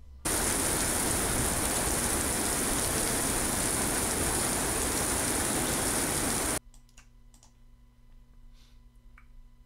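Steady heavy rain falling on a parking lot, starting and cutting off abruptly after about six seconds. Then a few faint computer mouse clicks.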